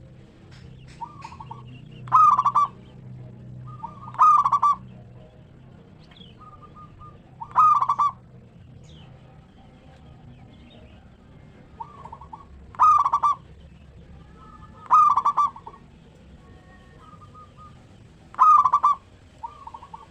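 Zebra dove (perkutut) singing its cooing song: six loud phrases spaced a few seconds apart, with softer short notes in between.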